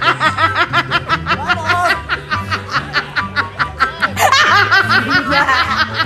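Rapid, high-pitched laughter in quick, even pulses, breaking off and starting again about four seconds in, over background music with a steady bass line.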